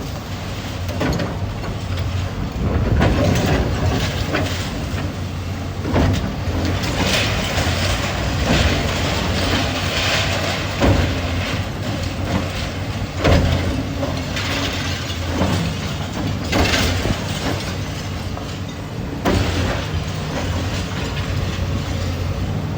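Heavy demolition machinery running steadily, with repeated metallic clanks and knocks several seconds apart, the loudest about halfway through.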